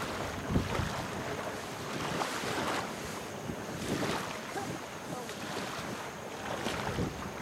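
Wind buffeting the microphone over shallow open water, with a few sloshing splashes from legs wading through the water.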